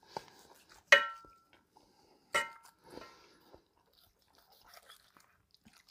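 A kitchen knife carving roast chicken in a cast iron skillet: soft crunching as the blade goes through the crisp skin and meat, and two sharp metallic clinks with a brief ring, about a second in and again a second and a half later, as the blade knocks against the skillet.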